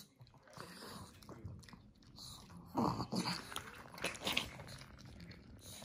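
Two Pomeranians squabbling over broccoli: a short growling snarl about three seconds in and another sharp outburst a second later, over the sound of the dogs chewing and crunching the florets.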